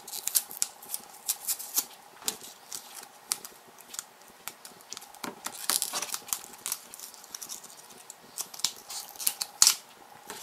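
Stiff plastic blister packaging crackling and clicking in irregular sharp snaps as it is pried open and pulled off its cardboard backing by hand.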